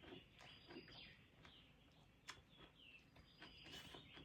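Near silence, with faint birds chirping in the background and a single sharp click about two seconds in.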